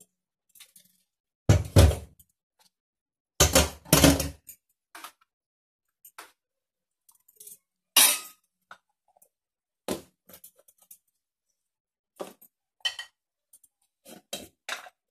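Kitchen containers and utensils being handled: a steel container and spice jars knocking and clinking against the counter and stove, with two heavier thumps in the first four seconds and lighter clicks near the end.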